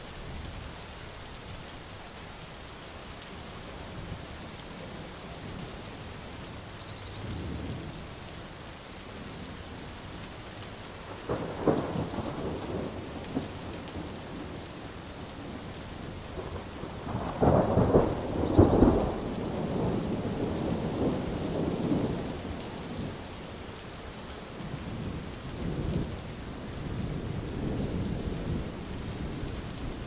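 Thunder rolling over steady rain. A low rumble comes about seven seconds in, a stronger peal at about eleven seconds, and the loudest peals at seventeen to nineteen seconds, followed by softer rolls and another building near the end.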